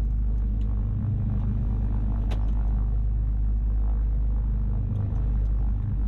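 Cessna 310's twin piston engines running at low taxi power, a steady low drone heard inside the cockpit, with a faint click about two seconds in.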